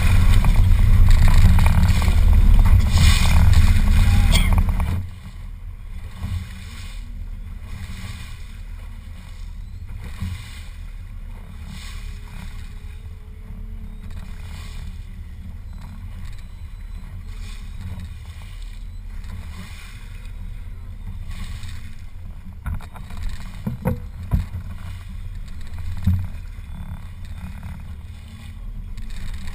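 A boat's motor running on open water. For about the first five seconds it is loud, with rushing noise across all pitches; then it drops suddenly to a steady low hum, with a few sharp knocks near the end.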